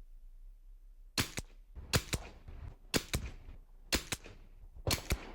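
A .22 LR rifle fires a five-shot group, one shot about every second, each shot a sharp crack with a quick second crack right behind it.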